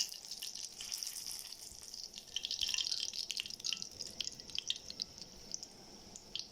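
Crushed garlic cloves sizzling in oil in a pan: a steady high hiss scattered with small pops and crackles, busiest in the middle.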